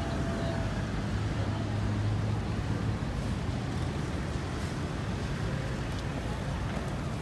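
City street traffic: a steady low rumble of vehicle engines, with a low engine hum swelling about a second in and easing off by three seconds.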